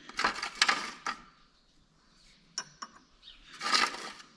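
Small metal parts clinking and rattling in two short bursts, with a couple of single clicks between them: the steel balls and parts of a loader wagon pickup's ball-type overload slip clutch being set back into place by hand.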